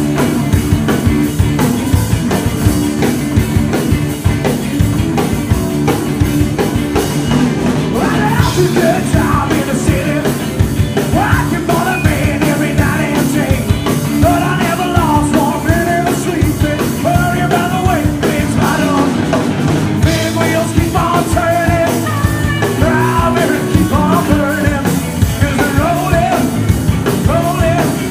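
Live rock band playing an up-tempo rock-and-roll number with a steady driving beat, just after being counted in; vocals come in about eight seconds in.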